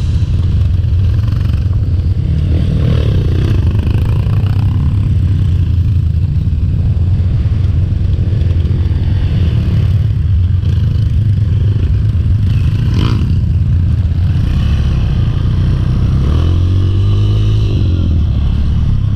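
Trail motorcycle engine running off-road, revving up and down about three seconds in and again near the end, with a sharp knock about thirteen seconds in.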